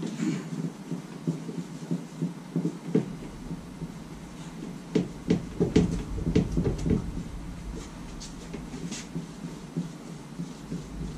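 Rummaging and handling noises at a tool chest: scattered clicks, knocks and crinkly rustles, busiest about five to seven seconds in. A low rumble comes in about three seconds in.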